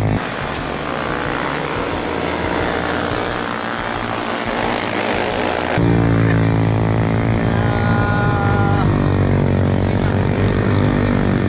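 Racing motorcycle engine running with wind rushing over the microphone. For the first half the wind dominates and the engine is faint. About six seconds in, the engine note comes back loud, its pitch rising and falling with throttle and gear changes.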